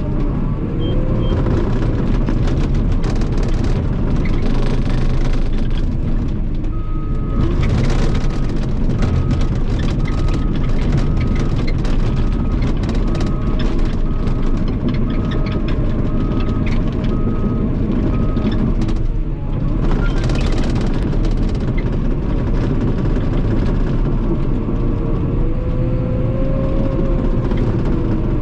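CAT D5 bulldozer's diesel engine running under work, with many short clanks. Its reverse alarm beeps steadily for about ten seconds in the middle as the dozer backs up.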